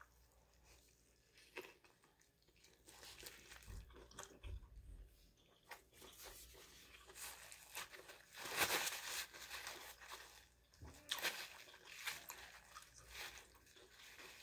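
Quiet close-up chewing of a bite of a pastrami cheesesteak sandwich, with soft wet mouth sounds and faint crunches. A paper napkin rustles about halfway through.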